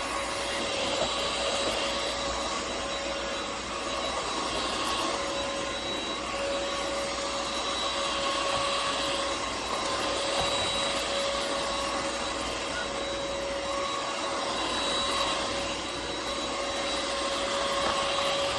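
UML0 N8 cordless stick vacuum running steadily, its motor giving a constant whine over the rush of air.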